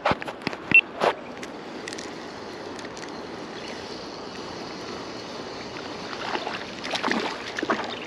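Spinning reel being cranked to bring in a hooked small rainbow trout, over steady river-flow noise. A few sharp clicks come in the first second, and a cluster of louder strokes comes near the end.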